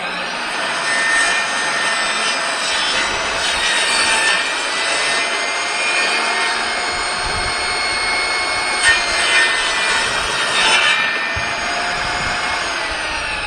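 Kobalt table saw's motor starting and running at full speed with a steady whine while the blade cuts through 3/4-inch plywood. Near the end the saw is switched off and the whine falls in pitch as the blade spins down.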